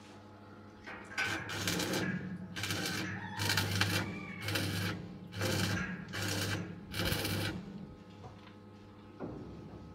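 About seven rasping hand-tool strokes on the thresher's metal, roughly one a second and each about half a second long, over a steady low hum.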